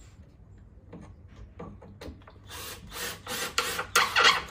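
Cordless drill driving short screws into pallet wood in a few short bursts, the loudest just before the end.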